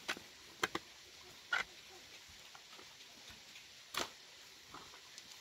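A handful of short, irregularly spaced knocks and clicks, about six in all, the loudest about four seconds in, over a quiet background.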